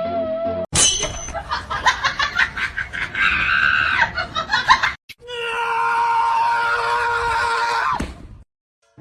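Screaming voice: quick pulsing shrieks for about four seconds, then after a short break one long, steady scream held for about three seconds that cuts off suddenly.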